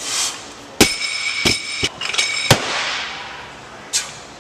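A loaded barbell with bumper plates strikes the lifting platform several times, about five sharp impacts in all. The steel bar rings between the first few.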